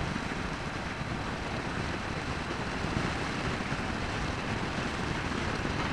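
Royal Enfield Meteor 350 motorcycle ridden at a steady cruising speed: a constant rush of wind and road noise, with the single-cylinder engine running beneath it.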